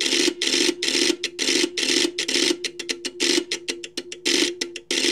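LDG AT-200Pro II automatic antenna tuner's relays clattering rapidly and irregularly as it steps through settings during a tune cycle, over a steady hum. A crazy noisy tuning run; the clatter stops just before the end as it finds a match.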